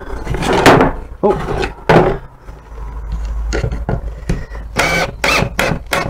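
Ryobi 18 V cordless drill driving a screw into wood, its motor run in several short bursts with pauses between.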